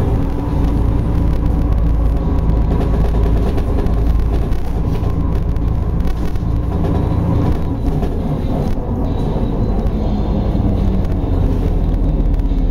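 Car driving uphill heard from inside the cabin: a steady low rumble of engine and tyre noise on the wet road.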